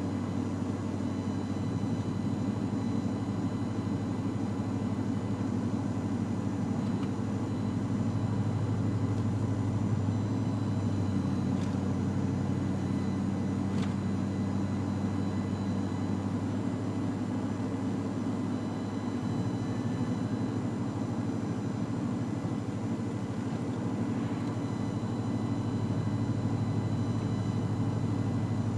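Pickup truck cruising on the highway, heard from inside the cab: a steady low engine drone under tyre and road noise. The drone's pitch shifts about ten seconds in and again about nineteen seconds in.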